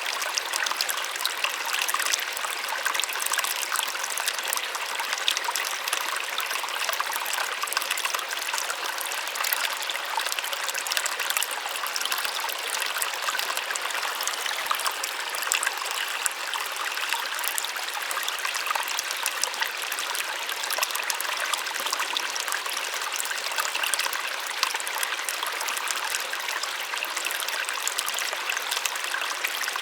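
Small waterfall splashing steadily, a continuous, even rush of falling water with a light, splashy character rather than a deep roar.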